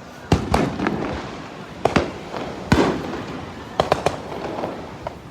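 Fireworks going off: about ten sharp bangs, several in quick pairs and triplets, each followed by a rumbling echo.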